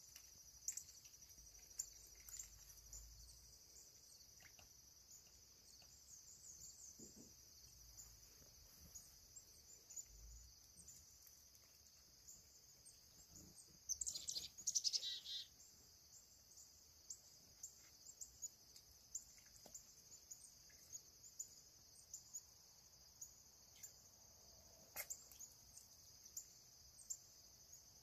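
Faint, steady high-pitched chorus of crickets, with scattered short bird chirps and a louder burst of bird calls about halfway through.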